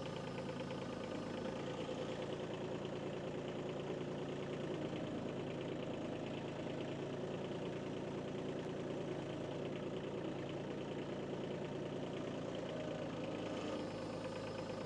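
Kubota B2301 compact tractor's three-cylinder diesel engine idling steadily.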